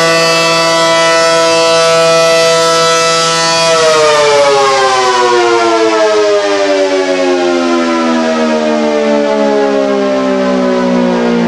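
Allertor outdoor warning siren sounding loudly on a steady tone during a test; a few seconds in, its pitch begins a slow, steady fall as the siren winds down.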